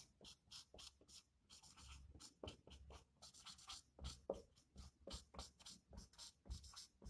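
Marker pen writing on a whiteboard: a quick run of short, faint strokes and squeaks as letters are written.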